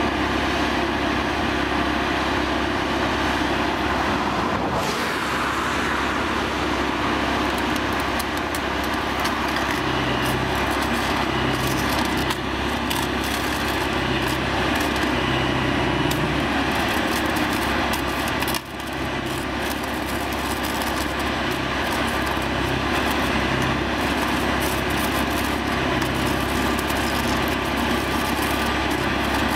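Plasser & Theurer APT 1500 RA mobile flash-butt rail welding machine running steadily, and from about a third of the way in the crackle of its welding head flashing the rail ends together, over a low hum that pulses on and off.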